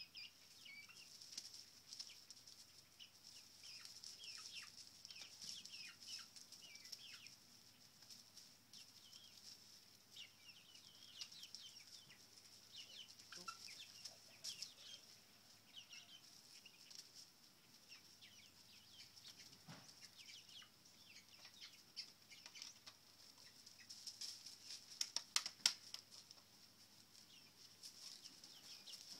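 Young chickens, about seven weeks old, peeping and chirping softly in short scattered calls as they peck at treats, over a steady high hiss. A few sharp clicks near the end are the loudest sounds.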